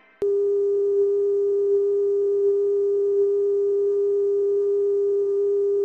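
Steady electronic test tone of a TV test pattern: a single pure beep at one mid pitch that switches on abruptly with a click just after the start and holds unchanged.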